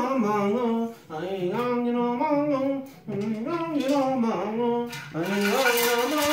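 A single voice chanting in wavering, drawn-out phrases with short breaks between them, as in a ritual healing chant. About five seconds in, a shaken rattle starts up under the voice.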